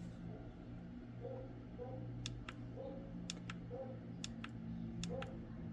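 Light, sharp clicks coming mostly in pairs, about one pair a second, starting about two seconds in, over a low steady hum.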